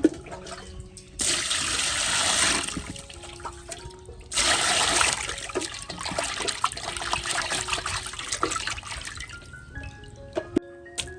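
Water pouring and splashing in two bursts, the first about a second and a half long, the second longer and tapering off, over soft background music.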